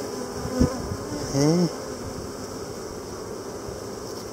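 Many honey bees buzzing steadily on an open comb frame, with one brief knock about half a second in.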